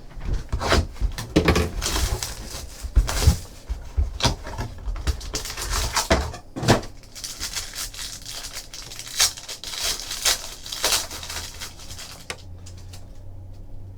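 A sealed trading card hobby box and its pack wrappers being torn open and handled, making a run of irregular crackling rips and rustles of plastic wrap, foil and cardboard. The noises thin out over the last two seconds.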